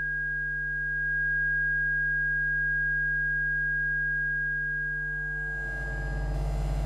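Electromagnetic fields made audible through induction headphones (coils and amplifiers): a steady high sine-like tone over several lower steady tones and a low electrical hum. A little over five seconds in, the high tone fades and a rougher buzzing mains hum with many overtones takes over.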